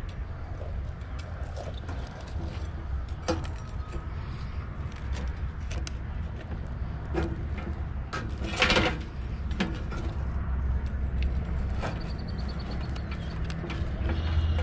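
Metal fork and knife carving a whole roasted chicken in a roasting pan, with scattered clicks and scrapes of the utensils against the pan and its wire rack. One louder scrape comes a little past halfway. A steady low rumble runs underneath.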